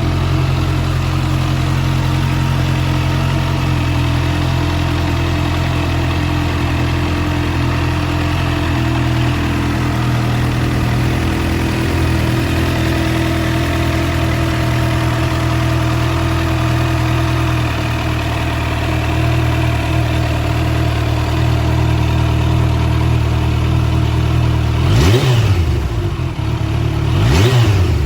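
Kawasaki Ninja H2 SX SE+ supercharged inline-four idling steadily through an aftermarket Trick Star slip-on silencer. Near the end it is revved twice in quick succession, the pitch rising and falling back each time.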